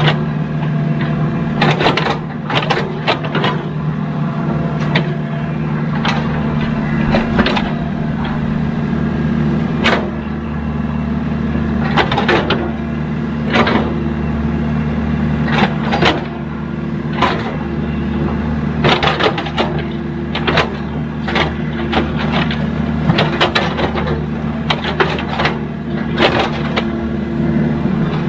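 Heavy diesel engine of a working excavator running steadily under load, with frequent irregular sharp clanks and knocks from the machine as it levels the ground.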